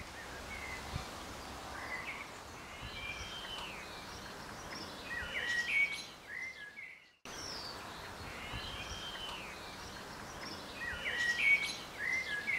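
Birdsong: several birds chirping, with arching whistled phrases, over a soft hiss. The same stretch of birdsong cuts out briefly about seven seconds in and starts over, as a looped recording does.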